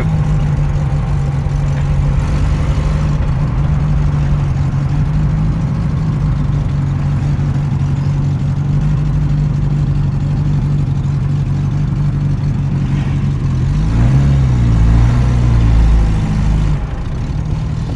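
Suzuki Carry 1.0 four-cylinder engine, swapped into a Mercedes sedan in place of its six-cylinder, running steadily. About fourteen seconds in it gets louder for a couple of seconds, its pitch wavering, then settles back.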